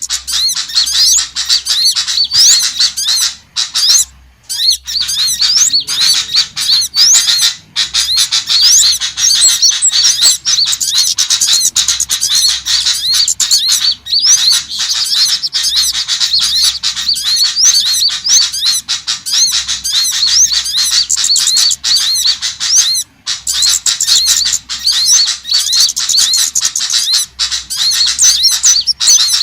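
Dense, unbroken chatter of small songbirds, a lure call recording for small birds: rapid high chirps and short rising and falling notes overlapping one another, broken only by a few brief gaps.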